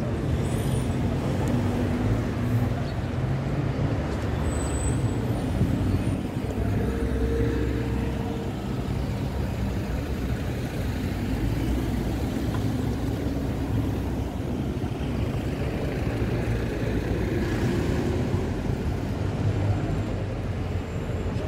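Street traffic: vehicle engines running and passing as a steady low rumble, with no single event standing out.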